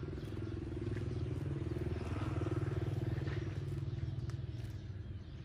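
A small engine running steadily, with a low, rapidly pulsing drone that swells a little about two seconds in and eases off again.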